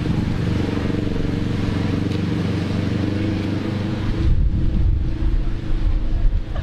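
Road traffic: a motor vehicle engine running steadily close by, with a heavier low rumble in the second half.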